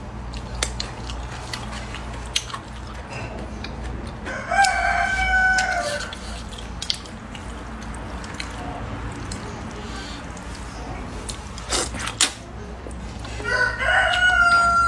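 A rooster crowing twice, about four seconds in and again near the end, each a drawn-out call that drops in pitch at its close. Between the crows come a few short clicks and slurps of noodles being eaten with chopsticks.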